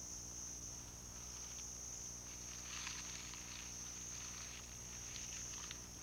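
Steady high-pitched chorus of night crickets over a low steady hum, with a few faint rustles in the leaf litter about halfway through.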